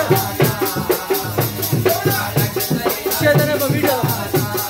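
Live harmonium music over a fast, steady hand-drum beat with a rattling shaker-like percussion, and a voice singing along.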